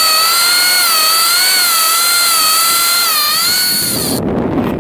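Okuma Convector CV-45D line-counter reel whining as the kite pulls line off the spinning spool, the pitch wavering up and down with the pull. The whine stops about four seconds in and wind rushes on the microphone.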